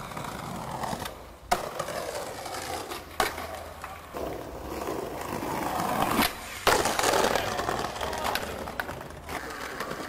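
Skateboard wheels rolling over paving slabs, with three sharp clacks of the board hitting the ground spread through the clip.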